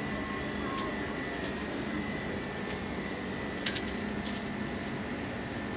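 Steady hum of a convenience store's cooling, from air conditioning and glass-door drink fridges, with a faint thin high tone. A few light clicks, the sharpest a little past halfway.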